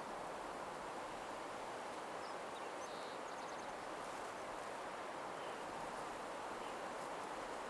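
Nature ambience: a steady soft rushing hiss like wind through leaves, with a few faint, high, quick bird chirps about two to three seconds in.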